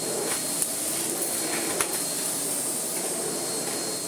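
Miele Blizzard CX1 bagless vacuum cleaner running steadily with a high whine over a rushing hiss, its floor head pushed over the floor, with a few light clicks.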